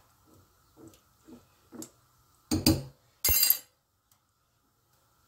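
A metal spoon tapping lightly against a clay casserole dish, then two loud clattering clinks about halfway through.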